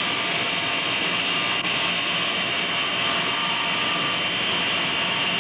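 A 3/4 hp induction motor, running on mains AC, belt-drives a 2900-watt generator head. The pair runs steadily at full speed with a high whine.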